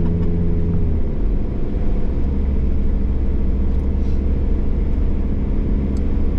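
Car engine and road rumble heard from inside the cabin while driving; the engine note changes about a second in, then runs steadily.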